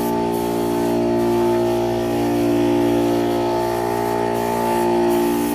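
Air compressor running steadily, with the hiss of a paint spray gun that stops briefly and starts again several times.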